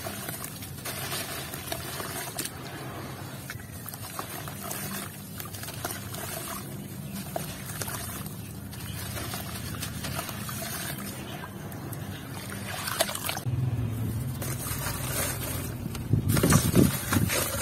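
Hands crumbling a wet, grainy ball of red dirt, grit pouring and pattering down into a tub of shallow water in a steady, gritty trickle. Near the end come louder, harder crunches as a block of grainy dirt is crushed.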